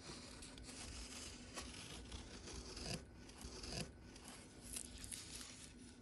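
Masking tape being peeled off the edges of a finished watercolor painting, a rasping tear from the paper with the loudest pulls about three and four seconds in.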